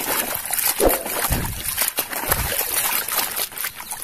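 Muddy water sloshing and splashing as a plastic toy train is swished by hand through a basin to wash the mud off, with a few heavier sloshes about one and two seconds in.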